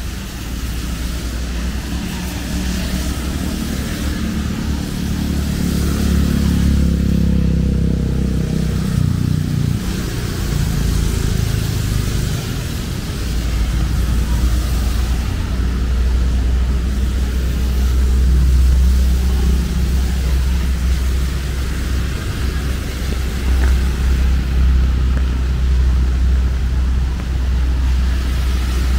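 Steady rain with passing road traffic: one vehicle's engine is loudest about six to nine seconds in, over a constant low rumble.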